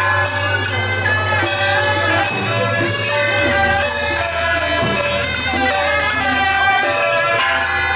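Suona (嗩吶) band playing a traditional melody in shrill, reedy unison, over crashing percussion struck at an even beat.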